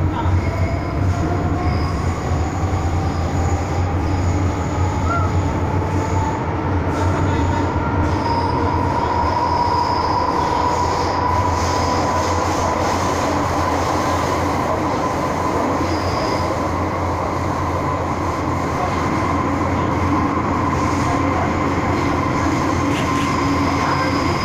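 MTR M-Train subway car running, heard from inside the cabin: a steady rumble of wheels and running gear, with a whine that rises in pitch over the first ten seconds or so as the train gathers speed, then holds steady.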